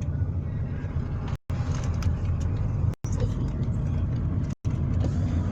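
Steady low rumble of a car on the move. The sound cuts to silence briefly three times, about every one and a half seconds.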